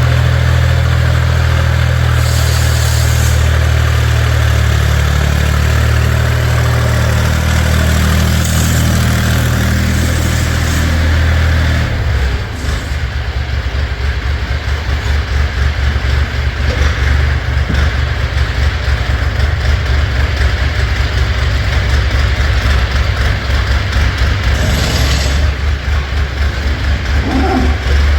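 Engine of the farm vehicle that shoves up the feed, running close by with a steady low hum; about twelve seconds in it changes to a rapid throbbing.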